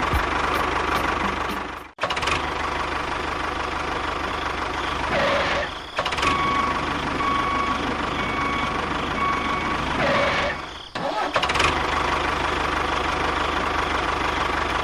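Small engine running steadily, broken off abruptly twice, with an evenly repeating beep in the middle stretch.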